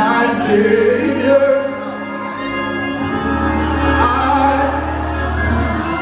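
Live gospel music: singing over a band. The singing is strongest in the first two seconds, and a long low bass note holds through the second half.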